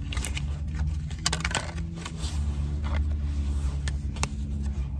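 Tarot cards being shuffled and handled, with a scattering of light card clicks and flicks, over the steady low hum of a car's idling engine.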